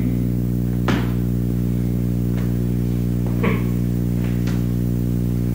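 Steady electrical hum with a stack of overtones in the soundtrack, with a few faint clicks.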